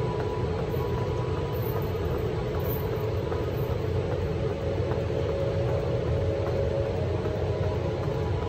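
Steady low mechanical rumble with a faint steady hum, unchanging throughout.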